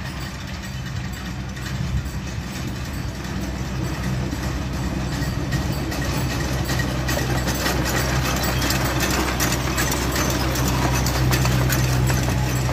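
Engine of a Severn Lamb Rio Grande miniature locomotive running with a steady low drone that grows louder as the train approaches and passes. From about halfway in, the wheels clatter over the rails.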